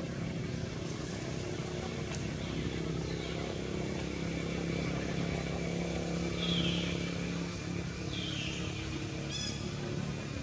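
A motor engine running steadily at low revs, a constant low hum. A few short, high, falling squeaks cut in over it about six and eight seconds in, with a quick high flutter shortly before the end.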